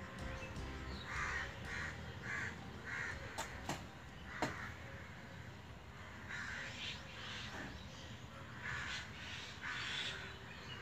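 Crows cawing: a run of four short, harsh caws about a second in, then more caws in two groups in the second half. A few sharp clicks fall between them.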